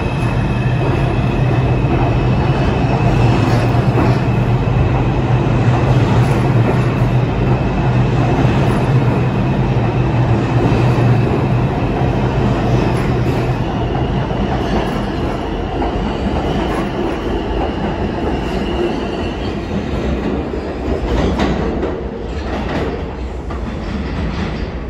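New York City subway train running at speed in the tunnel, heard from inside the car: a steady rumble of wheels on rail with a low hum and a thin high whine. The hum fades about halfway through, and a few clacks over rail joints come near the end.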